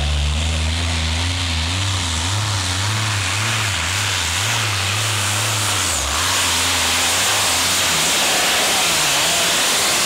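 Modified-class pulling tractor's supercharged engines under load while pulling the sled. The low engine note wavers up and down at first, then about six seconds in it turns into a louder, rushing, hissy sound at full power.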